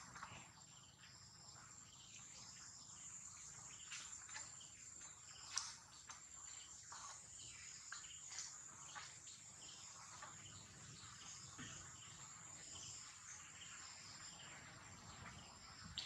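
Near silence: faint outdoor ambience with a steady high-pitched insect drone, scattered faint chirps, and one short click about five and a half seconds in.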